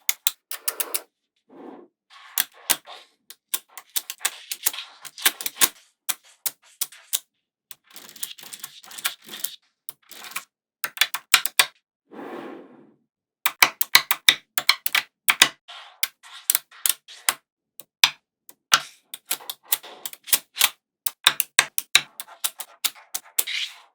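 Small magnetic balls clicking together in quick, irregular snaps, with short stretches of softer rattling as balls roll and slide against each other.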